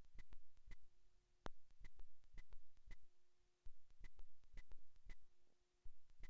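Faint electronic clicking from a microphone that has cut out in a technical fault: sharp clicks about twice a second, with brief faint hum tones and a high whine that switches on and off.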